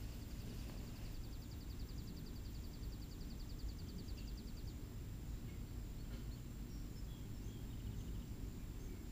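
Outdoor backyard ambience: a steady low rumble, with a rapid high-pitched trill of about nine pulses a second for the first four and a half seconds, then a few scattered high chirps.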